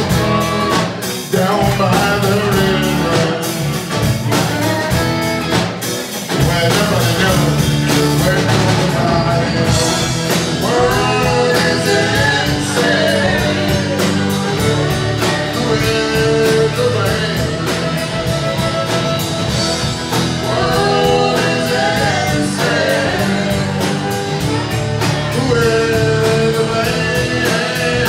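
Live band playing a bluesy rock song: a fiddle carries gliding, bending lines over strummed acoustic guitar and a steady drum kit beat.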